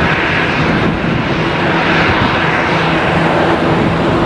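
Boeing 737-800's CFM56 jet engines running steadily at low taxi power: an even rushing hiss with a low steady drone.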